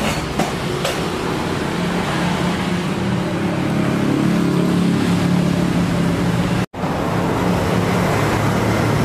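Steady din with a low, engine-like hum, typical of motor traffic, that breaks off for an instant about two-thirds of the way through.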